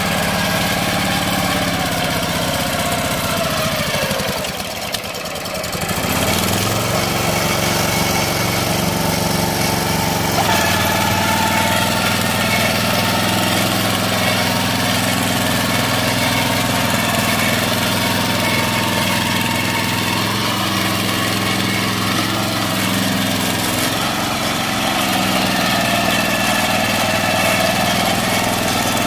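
Quick Impala hand tractor's engine running, briefly quieter about five seconds in, then steady with small shifts in engine speed.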